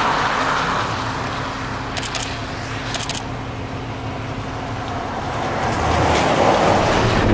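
Outdoor rush of wind and passing road traffic. It swells near the start and again near the end, with a faint steady hum in between and a few faint clicks about two and three seconds in.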